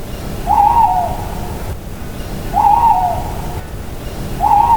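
An owl hooting three times, about two seconds apart, each hoot short, over a steady background hiss.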